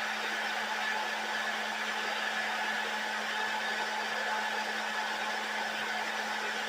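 Hair dryer blowing steadily: a constant rush of air with a low hum under it.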